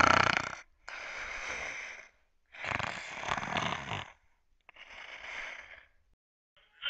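A person snoring: four drawn-out snores, each about a second long and about two seconds apart, growing fainter.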